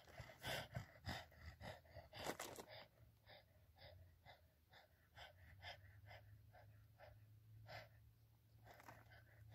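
Faint crinkling of a plastic tarp shelter as the air stirs it: a run of short, crisp crackles, about three a second, louder in the first few seconds.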